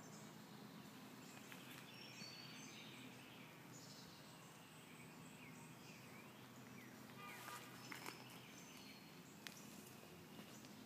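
Quiet outdoor background with a few faint, short bird chirps and a few light clicks.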